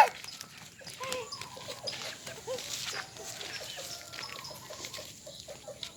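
A cat mewing faintly in many short, small calls, just after the tail of a louder meow at the very start.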